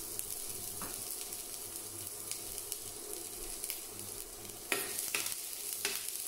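Chopped garlic sizzling steadily in hot olive oil in a stainless steel frying pan. Near the end a metal spoon stirs it, scraping across the pan several times.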